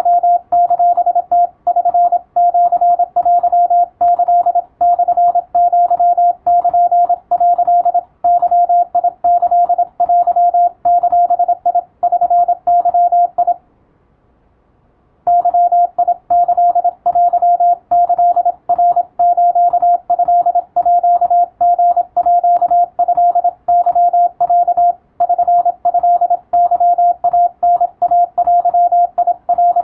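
Morse code (CW) sent as a single mid-pitched beep, keyed fast in dots and dashes, in groups with short gaps between them. The code stops for about a second and a half midway, then runs on.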